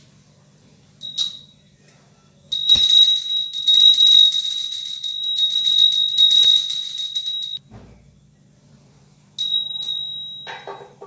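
Handheld puja bell rung during worship at a home shrine: one short ring about a second in, then continuous ringing for about five seconds, then a last ring that fades away near the end.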